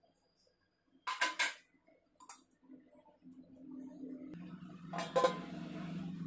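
Metal cookware clinking, then a steel lid set onto a cooking pot with a clatter about five seconds in. A low steady hum starts about three seconds in and grows louder.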